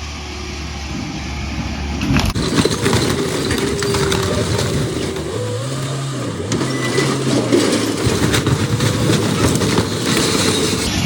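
Skid steer engine running under load while a camper body is torn apart, with many cracks and crunches of breaking material. About two seconds in the sound grows louder and fuller.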